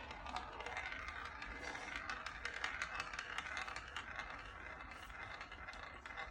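Marbles rolling along a marble run's track: a steady rattle with many small, quick clicks.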